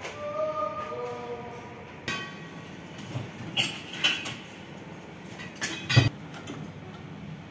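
Metal clinks and knocks of tools and parts being handled in the front luggage compartment of a VW Beetle 1303, with a brief squeak at the start and the loudest knock about six seconds in.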